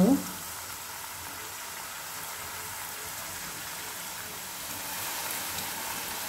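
Hot oil sizzling steadily as thin diamond-cut pieces of wheat-flour dough deep-fry in it, growing a little louder near the end as more pieces go in. The oil is well heated, hot enough for the thin pieces to puff up.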